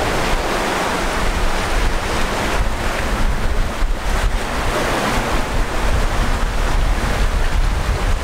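Wind buffeting the microphone with a steady low rumble, over the wash of ocean surf.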